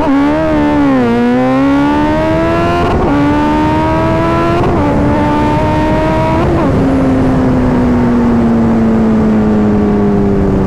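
Kawasaki Z900 inline-four motorcycle engine accelerating through the gears: the note climbs, drops with quick upshifts about three, four and a half and six and a half seconds in, then slowly falls.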